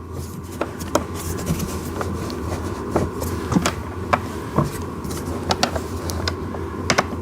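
Scattered light clicks and knocks of a bolt and plastic parts being handled and fitted into a toy ride-on tractor's plastic steering column, over a steady low hum.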